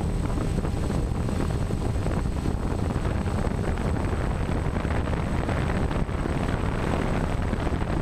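Steady rush of a quadcopter drone's propellers, mixed with wind buffeting on its onboard camera microphone, with a faint high whine above it.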